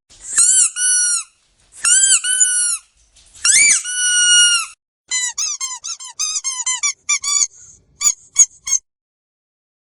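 Squeaky dog toy squeezed and released, giving paired, high-pitched squeaks. There are three long pairs, then a quick run of short squeaks about five seconds in, and three sharp short squeaks near the end.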